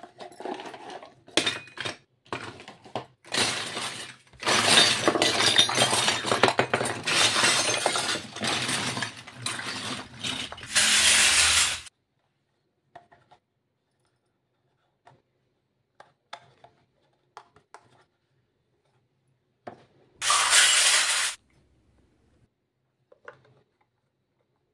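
A heap of miniature steel and plastic toy kitchen utensils clattering and clinking together for about eight seconds in a dense rattle, after a few light clicks of a small cardboard box being handled. A second, shorter burst of noise comes about twenty seconds in.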